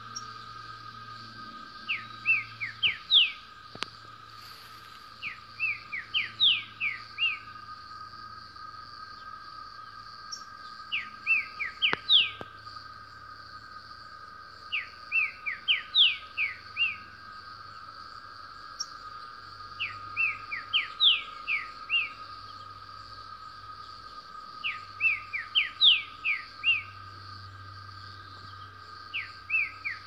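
A wild green-winged saltator (trinca-ferro) singing very fast, short phrases of five to seven quick whistled notes, seven phrases spaced about four to five seconds apart. A steady high-pitched drone sits behind the song.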